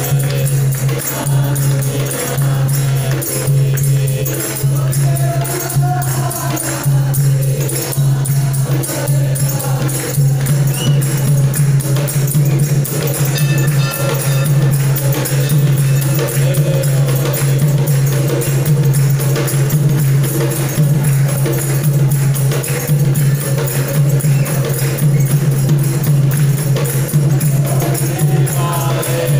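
Group of voices singing a Hindi devotional bhajan, backed by steady jingling hand percussion, over a constant low hum.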